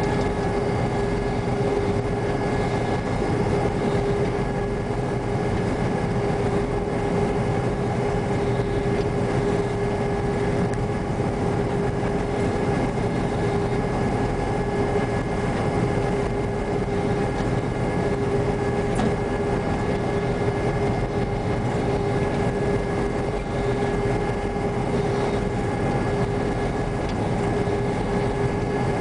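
New Holland TR95 rotary combine running while harvesting wheat, heard from inside the cab. It is a steady drone of engine and threshing machinery with a constant whine held over it.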